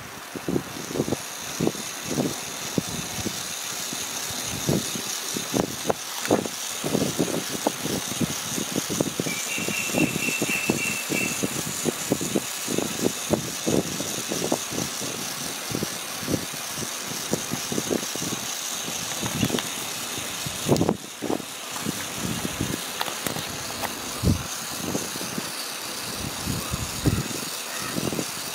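Irregular clicking and rattling from the wheels and rods of a handmade miniature 4-6-2 steam locomotive model as its running gear turns, over a steady high hiss. A short run of high chirps comes about ten seconds in.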